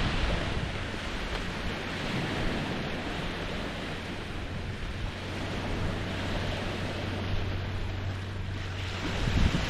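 Small Lake Huron waves lapping on the shore in a steady wash, with wind buffeting the microphone, gusting harder near the end.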